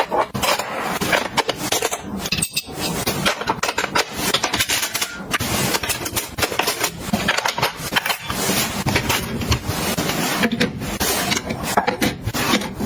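A quick, continuous run of clinks, taps and scrapes as small hard items and containers are handled and set in place.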